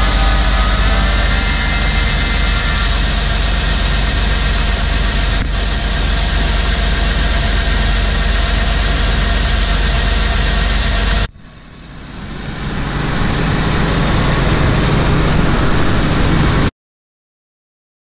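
Farm machinery engine running steadily with a strong low rumble. The sound drops out abruptly about eleven seconds in, swells back up over a few seconds, and cuts off suddenly near the end.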